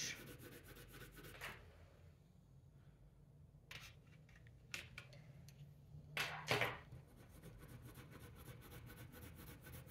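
Faint scratchy rub of a colored pencil shading on grained drawing paper. A few light knocks and a short clatter around the middle, as pencils are set down and picked up; the clatter is the loudest thing.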